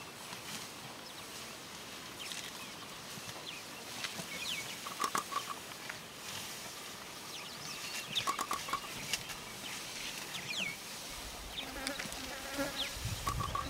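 Wildlife ambience: insects buzzing and birds giving short chirps, with a short trill of three or four quick notes heard three times and scattered clicks. A low rumble comes in near the end.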